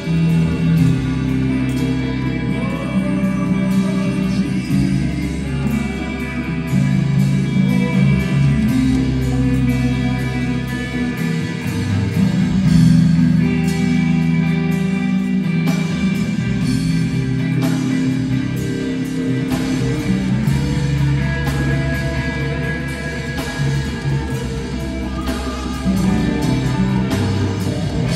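Live band playing a gospel rock song on electric guitars, bass guitar and drum kit, with singing.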